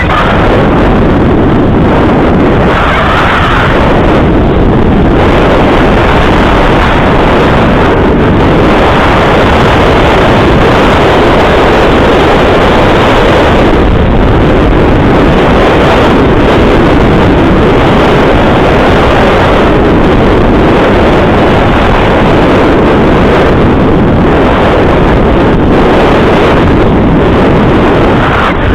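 Loud, steady wind buffeting on a small action camera's microphone while moving fast downhill.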